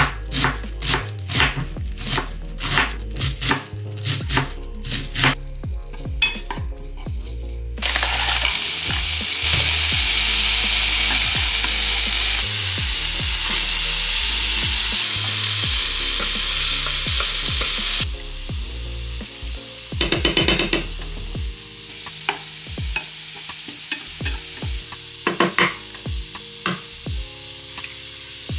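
A knife chopping cabbage on a bamboo cutting board, about two strokes a second. About eight seconds in, shredded cabbage starts sizzling loudly in a frying pan. About ten seconds later it drops to a quieter frying sizzle with scattered clicks. Background music plays underneath.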